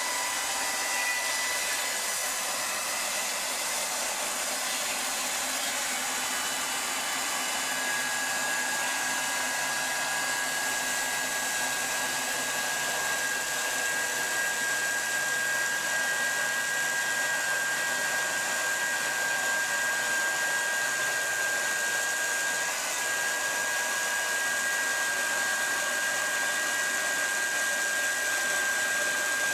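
A motor-driven machine running steadily: an even whirring hiss with faint high whine tones, one of which comes in more clearly about eight seconds in.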